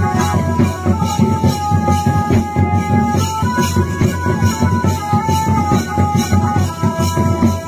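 Folk-style music: drums and jingling cymbals keep a quick, steady beat under a melody of long held high notes that steps up and down.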